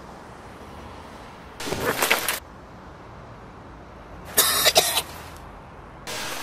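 A man coughing hard in three harsh fits about two seconds apart, the last running on as the sound ends.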